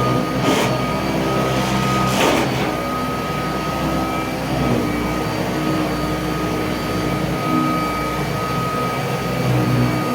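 Kirby Tradition upright vacuum cleaner running on carpet: a steady motor hum with a constant whine. Two short swishes come about half a second and two seconds in.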